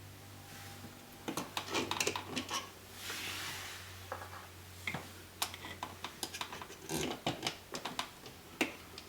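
Irregular clicks, knocks and a brief scrape of a GFCI outlet being handled, pushed into its electrical box and screwed in place with a hand screwdriver.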